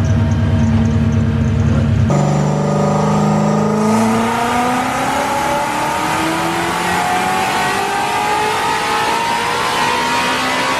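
Supercharged Mustang V8 with a ported blower making a full-throttle pull on a chassis dyno: the engine's pitch climbs steadily from about two seconds in to the end.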